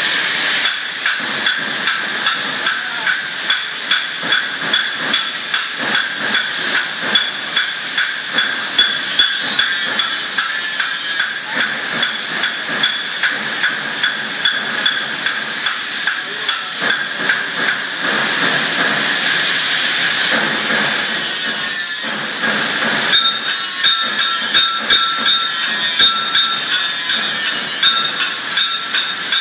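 Resistance spot welder firing in a regular rhythm, about one and a half welds a second, as radial steel strips are welded around a large circular plate. Under it runs a steady hiss with high, steady whining tones.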